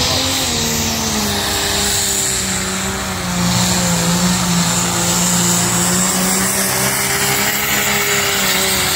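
Diesel pulling tractor's engine running hard under load as it drags the weight-transfer sled down the track, a loud steady drone with a high steady whistle above it.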